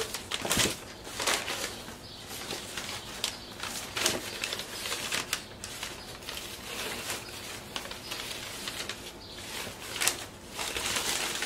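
Paper packing rustling and crinkling as hands dig through shredded paper in a cardboard shipping box, with irregular scratchy crackles and a few louder rustles.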